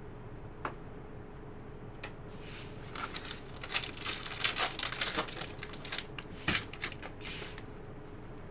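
A trading-card pack being opened and handled: crinkling and tearing of the wrapper and cards rustling and sliding against each other, in a quick run of strokes from about two seconds in to near the end.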